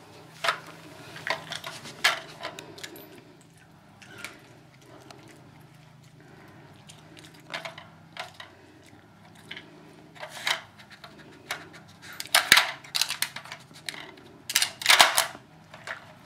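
Plastic pieces of a Kyjen Treat Jigsaw Glider dog puzzle feeder clicking and clattering as a dog noses and slides them to get treats out. Scattered irregular knocks, with two busier bursts of clatter near the end.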